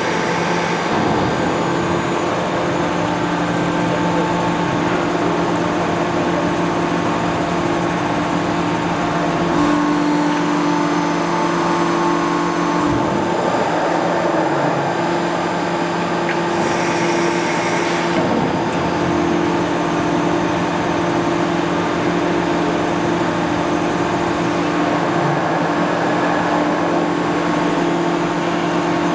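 Hydraulic press brake (ERMAK CNC HAP 5100-400) running, a steady hum from its hydraulic power unit, with the tone shifting briefly about ten seconds in and again a few seconds later.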